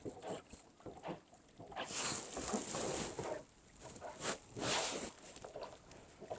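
Kayak paddle strokes in the water: a long swish about two seconds in and another near five seconds, with small splashes and drips between.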